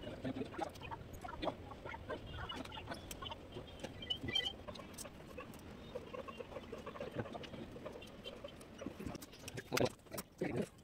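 Small clicks and taps as an iPhone 11's display and parts are handled and pressed into place during reassembly, louder near the end, over faint background voices.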